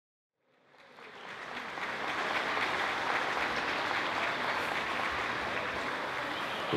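Audience applause, fading in about a second in and then holding steady.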